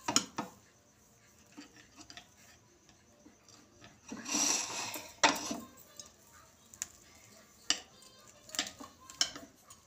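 Table knife cutting through French toast on a glass plate, the blade clinking sharply against the glass several times, with a short rasping scrape about four seconds in.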